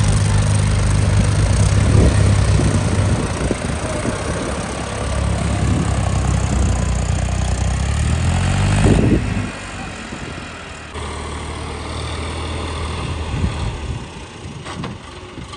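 Diesel tractor engines labouring as a tractor stuck in deep mud is towed out by two other tractors. The engine note climbs briefly about nine seconds in, then eases off and runs quieter.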